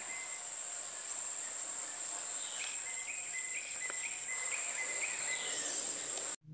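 Insects droning with a steady, high-pitched buzz. From about two and a half seconds in, a rhythmic high chirping joins at roughly two notes a second. Both cut off suddenly near the end.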